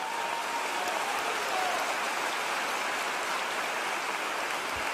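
Large audience applauding steadily, an even wash of many hands clapping.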